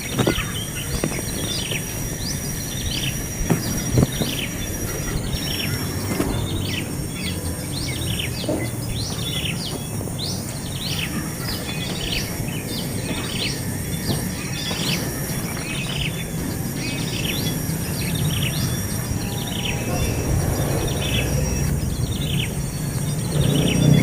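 Nestling birds begging, a long run of short, high, falling chirps repeated two or three times a second: the calls of hungry chicks asking to be fed.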